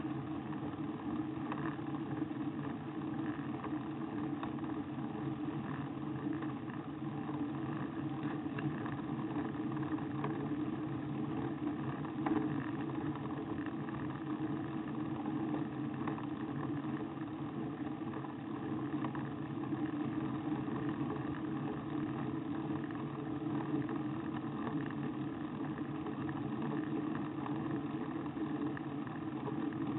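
Steady drone of riding noise and hum picked up by a camera mounted on a road bicycle's handlebar, unchanging in level throughout.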